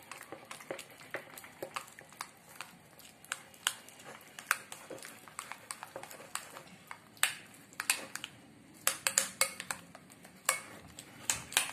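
A spoon stirring thick flour batter in a bowl, with irregular clicks and scrapes as it knocks against the sides, coming faster in the second half.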